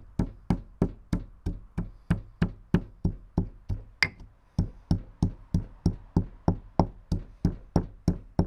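Pestle pounding unpeeled almonds in a stone mortar: a steady run of dull knocks, about three a second, as the nuts are crushed for almond milk.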